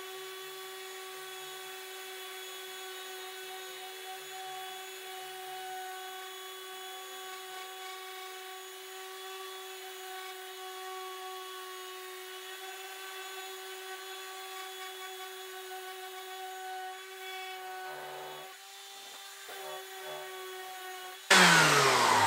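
Cordless orbital sander running steadily on a hickory hammer handle: a steady motor whine with the hiss of sandpaper on wood, faltering for a moment near the end as the sander is lifted. Loud music cuts in abruptly just before the end.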